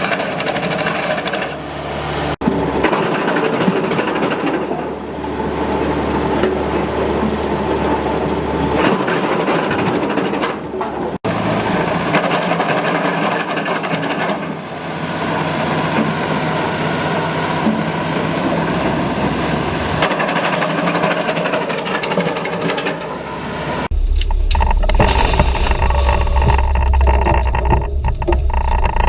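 Wood chipper running, loud and steady. The sound changes abruptly three times: about two seconds in, about eleven seconds in, and near the end, where a deeper, heavier running sound takes over.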